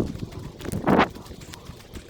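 Footsteps crunching on dry ground and brush, with one loud crunch about a second in, then quieter.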